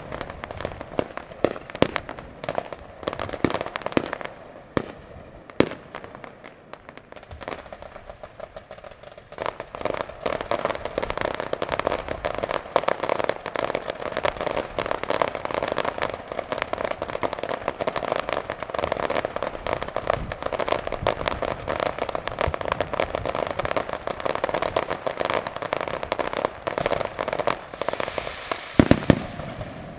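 Aerial fireworks display: shells bursting with sharp bangs, thickening about ten seconds in to a dense, rapid run of many bursts and pops, with a few louder bangs near the end.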